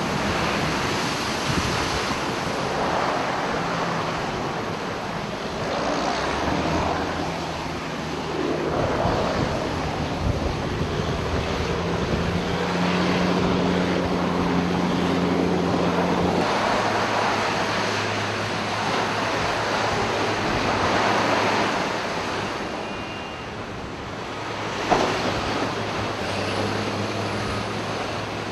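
Steady rushing noise, like wind buffeting the microphone, with a low steady hum underneath that shifts pitch every few seconds. There is one sharp knock near the end.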